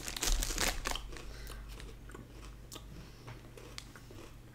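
Crunching and chewing of Combos Pizzeria pretzels, crunchy oven-baked pretzel shells with a soft cheese-pizza filling. The bites are loudest about the first second, then the chewing goes on as fainter crackling.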